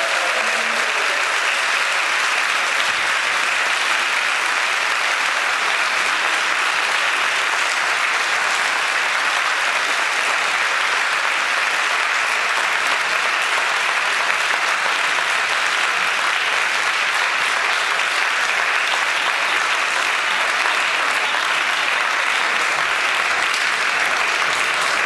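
Audience applauding, long and steady.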